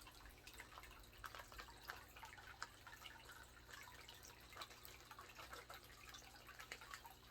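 Faint, irregular dripping and trickling of water.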